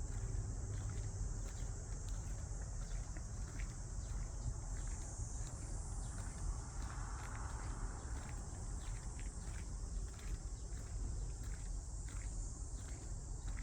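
Steady high-pitched insect chorus, crickets chirring, over a constant low rumble.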